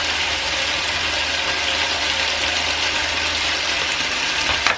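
Chicken pieces frying in oil in a pan, a steady sizzle, with a single sharp click near the end.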